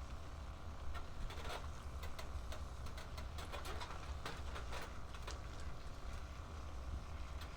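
Kitchen sounds during cooking: light clicks and taps scattered through, over a steady low hum.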